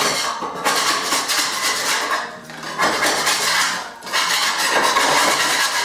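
Metal putty knife scraping old veneer off a wooden cabinet panel, a scratchy rasp in several long strokes with short pauses between them.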